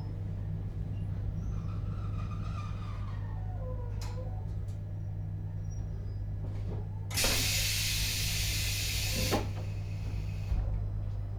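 Inside a JR Hokkaido 721-series motor car with Toshiba GTO inverter drive: the inverter's falling tone dies away with a click as the train brakes to a stop, over the car's steady low electrical hum. A few seconds later comes a loud hiss of compressed air, lasting about two seconds, followed by a couple of knocks.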